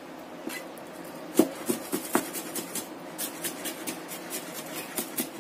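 Chinese cleaver chopping garlic finely on a plastic cutting board: a run of short knocks of the blade on the board. One loud knock comes about a second and a half in, then quicker steady chops at about three or four a second.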